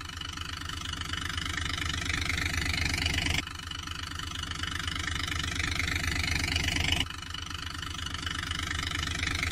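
Engine running with a fast knocking idle, growing louder over about three and a half seconds, then cutting off abruptly and starting again, twice.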